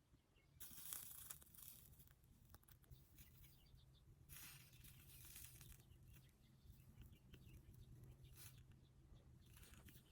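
Faint rustling and crinkling, like paper or foil being handled or torn, in a few short bursts: the first about a second in, another around the middle, and a couple near the end.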